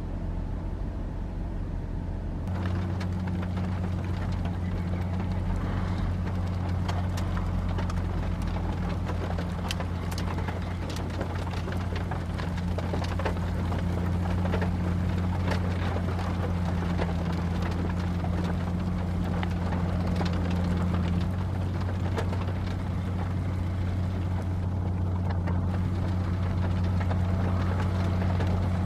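Heavy construction machine's diesel engine running steadily, getting louder about two seconds in, with scattered metallic clanks and rattles throughout.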